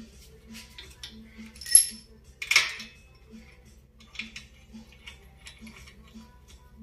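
Steel parts of a hand-operated bushing extractor clinking against each other and the vise-held swingarm as it is fitted up to press in a new swingarm bushing: two sharp metallic clinks about two and two and a half seconds in, then lighter ticks.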